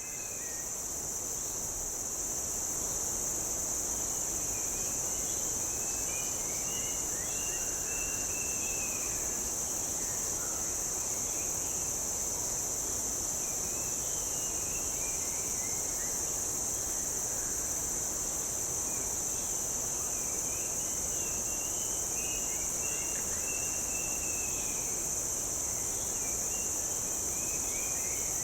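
Rainforest ambience: a steady, high-pitched drone of insects, with a bird calling in runs of short falling notes that come in several times over it.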